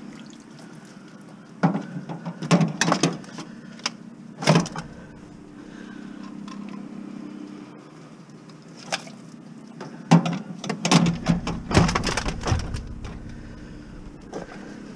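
Sheet-metal clunks, bangs and scraping as a clothes dryer is heaved and slid into the back of a vehicle, with a few knocks in the first five seconds and a longer run of clatter about ten seconds in. Under it a vehicle engine hums steadily at idle.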